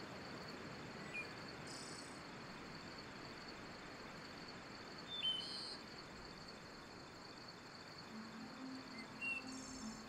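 Quiet forest ambience: a steady high insect trill, with a few short bird chirps scattered through it. A low hum starts near the end.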